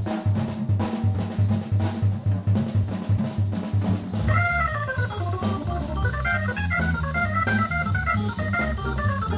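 Live jazz trio music. A drum kit keeps time over a walking bass line, and about four seconds in a Hammond organ comes in with a bright, fast run of melody that carries on over the drums.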